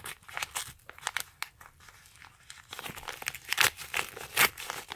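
Packaging crinkling and tearing as a small shipped parcel is opened by hand, in irregular crackles that come thicker in the second half.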